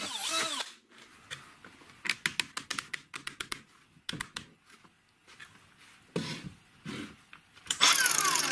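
A cordless drill finishes boring a hole through a PVC pipe cap and winds down in the first second, followed by a run of light plastic clicks and taps as PVC fittings are handled and pushed together. Near the end a loud rushing burst with a falling tone lasts about a second and a half.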